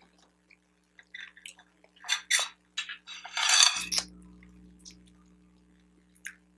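Scattered small clicks, taps and rustles of food and tableware being handled while eating, with one louder rustle about three and a half seconds in. A low hum comes in just after it and slowly fades.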